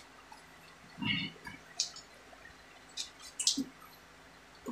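Scattered small handling noises of copper tubing and a cloth: a few soft rubs and light knocks, the strongest about a second in and again around three and a half seconds in.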